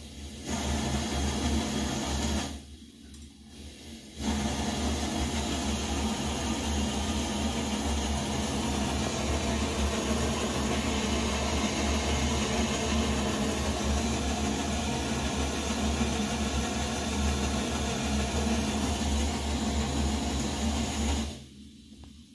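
Coleman 533 pressurized gasoline stove burner running at full flame with a steady rushing noise. It drops away briefly after about two seconds, comes back steady, and falls off sharply near the end as the valve turns the flame down.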